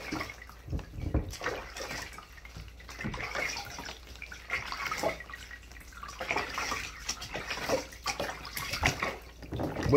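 Water splashing and dripping in a bathtub as a puppy is rinsed off, in irregular splashes.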